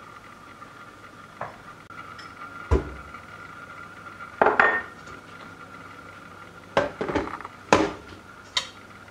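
Stainless-steel stand mixer bowl knocking and clinking against the metal mixer base and counter as it is handled and set in place: several separate sharp metallic knocks, two of them loud, over a faint steady high hum.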